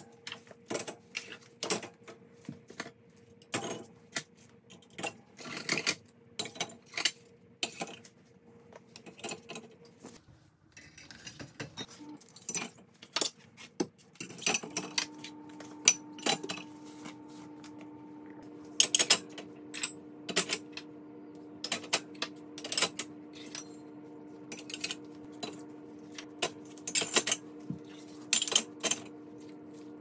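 Ceramic mugs, plates and bowls clinking and knocking against the wire rack of a dishwasher as it is loaded by hand: a rapid, irregular series of clicks and clatters. A faint steady hum comes in about halfway through.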